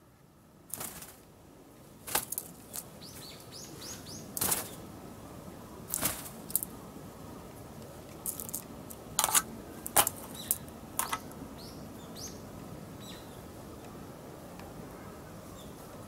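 A run of short rustles and clicks, the loudest about two, six and nine to eleven seconds in, with a few faint high chirps of small birds around three to four seconds in. No kookaburra laughter is heard.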